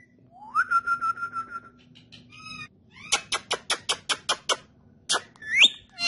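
Indian ringneck parrot whistling: a whistle that rises and then holds with a fast warble, then a rapid run of about ten sharp clicks or chirps, and a short rising whistle near the end.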